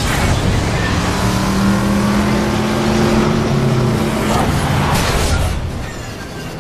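Film soundtrack of big, heavily modified vehicle engines revving and running hard as the convoy moves off, with a steady held engine note through the middle that eases off near the end.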